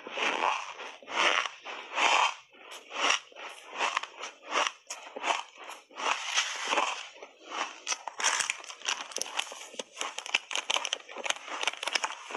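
Close-miked chewing of big mouthfuls of squeaky shaved ice: crunching bites about one a second, turning into quicker, denser crunches in the second half.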